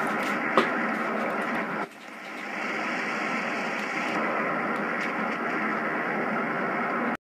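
Shortwave receiver audio from an Icom IC-735 tuned to a utility station at 6387 kHz in AM: steady static hiss with faint tones in it, and a sharp click shortly after the start. About two seconds in, the signal drops sharply and then builds back up over a second, as the receiving loop array is switched to another direction.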